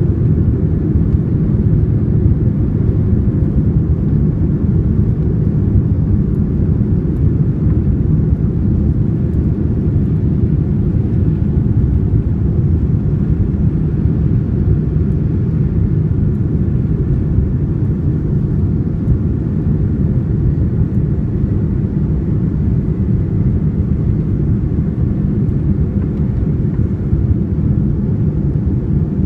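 Steady low rumble inside the cabin of a Boeing 787-9 taxiing on the ground: the engines running at low taxi thrust, heard through the fuselage, with the landing gear rolling over the taxiway.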